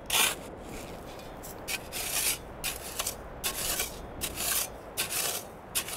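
Steel shovel blade digging and scraping into dry, sandy, gravelly soil: a quick series of short gritty scrapes as the ground is dug out for a pit.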